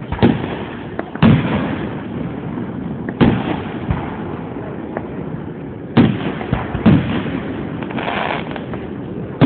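Aerial fireworks bursting: about six sharp bangs at uneven intervals, a second to three seconds apart, over a continuous noise of the display.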